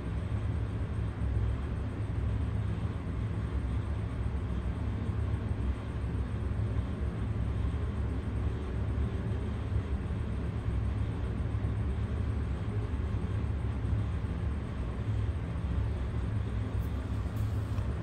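Steady low background rumble with a faint hiss.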